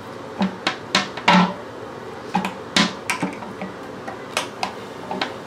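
About a dozen irregular sharp clicks and knocks, hard plastic and metal tapping together, as a screwdriver is handled at a toilet seat's hinge bolt.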